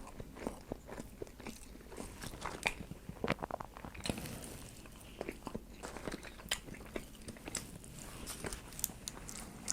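Close-miked eating sounds from a person chewing food: irregular wet mouth smacks and small clicks.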